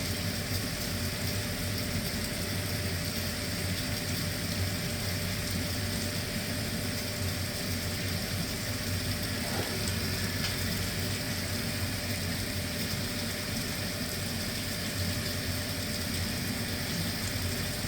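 Tankless gas water heater running steadily with hot water flowing: a constant hum with a rush of noise, not cutting out.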